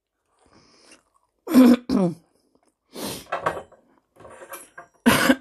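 A woman clearing her throat and coughing in about four short bursts, the loudest near the end.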